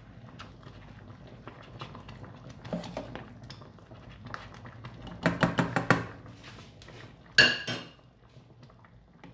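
Ladle stirring sauce in a stainless steel pot, scraping and clinking against the pot's side. A little past halfway comes a quick run of about six ringing clinks, then one louder knock about a second later.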